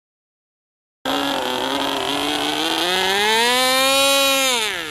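Magnum XLS-15A two-stroke glow engine of a model combat plane running at full throttle with a high buzzing whine. It cuts in about a second in, climbs in pitch, then drops sharply near the end as the engine flames out just after the hand launch, which the flyers put down to the engine running too rich.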